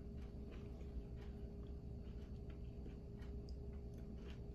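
Quiet room tone with a steady low hum and scattered faint clicks and mouth sounds as a slice of tomato is picked up and eaten.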